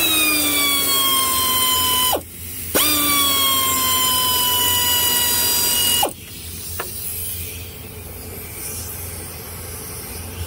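Cordless power tool with a socket on an extension spinning a bolt on the cooling fan assembly, in two runs of about two and three seconds with a short stop between. The motor whine jumps up at each start and sinks slowly in pitch while it runs, with no hammering of an impact driver.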